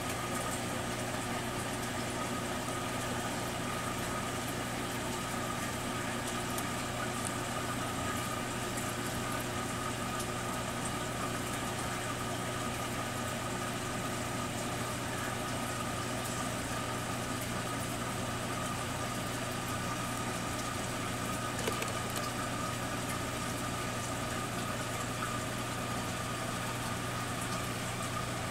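Aquarium air pump running a set of sponge filters: a steady low hum with an even hiss of air and water, unchanging throughout.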